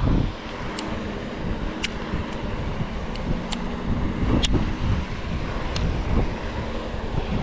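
Wind buffeting the microphone with a steady low rumble, and a few short, sharp ticks scattered through it.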